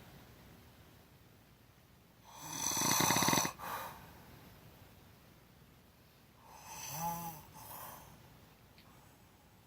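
A person snoring with the mouth open: two snores about four seconds apart, each a rattling in-breath followed by a short breath out. The first is the louder.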